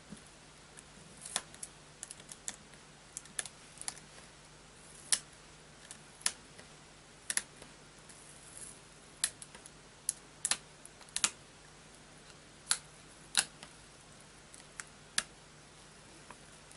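Small ceramic-bladed scissors snipping clear plastic masking film, giving sharp, short clicks at irregular intervals, about a dozen of them, with short pauses in between.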